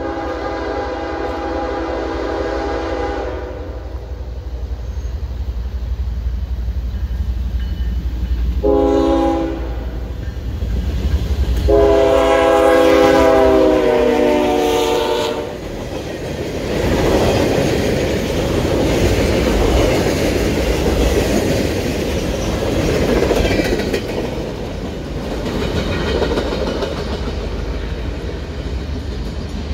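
Freight locomotive's air horn sounding a long blast, a short one, then another long blast that drops in pitch as the locomotive passes close by. Then the steady rumble and wheel clatter of freight cars rolling past.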